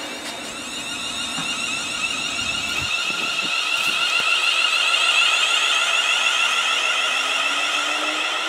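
ScotRail Class 380 electric multiple unit pulling into the platform, giving off a steady, piercing high-pitched squeal that grows louder toward the middle. A few low knocks come from the wheels about three to four seconds in, and a low whine rises in pitch near the end.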